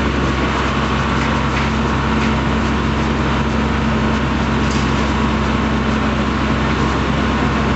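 A heavy engine running steadily at a constant speed, with a loud, even rushing noise over it.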